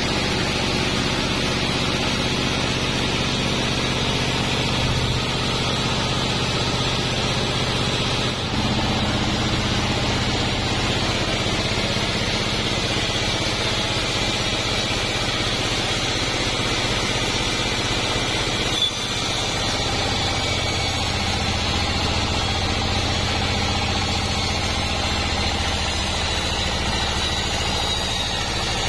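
Band sawmill running with a steady low machine drone as its blade cuts durian wood logs. The sound changes abruptly about 8 and 19 seconds in.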